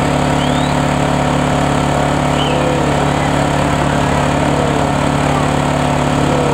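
Fire truck engine idling steadily, heard up close.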